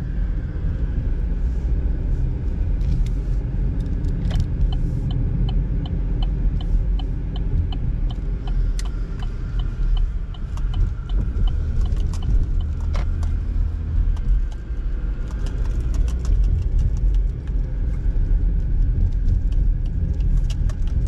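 Steady road and engine rumble heard inside a moving car's cabin. For several seconds in the middle, a turn signal ticks evenly, about two or three ticks a second, as the car turns.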